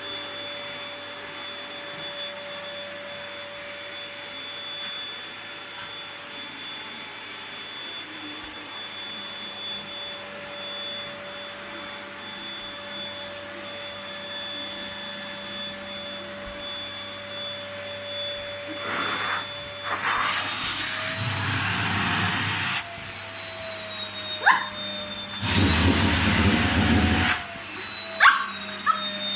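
Vacuum cleaner running with a steady whine. In the second half its suction rises twice into a louder rush for a few seconds, the motor pitch dipping as it loads.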